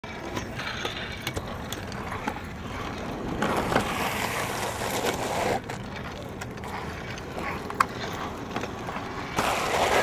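Kick scooter wheels rolling over rough concrete, a gritty rolling noise that swells twice, with a few sharp clicks and knocks.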